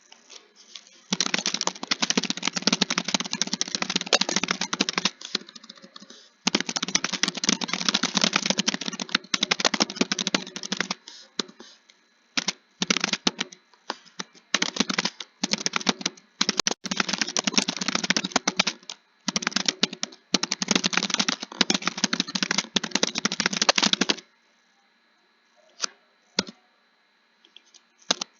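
Fast typing on a computer keyboard: long runs of rapid keystrokes separated by short pauses. The typing breaks into shorter bursts midway, then stops a few seconds before the end, leaving only a couple of single key clicks.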